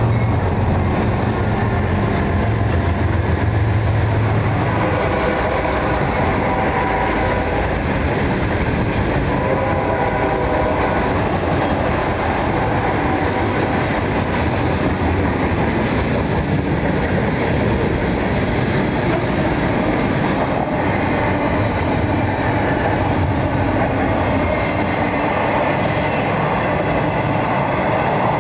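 CSX freight train passing close by. Its diesel locomotives go by in the first few seconds with a deep engine hum. Then a long string of freight cars rolls past with steady clatter of wheels on the rails.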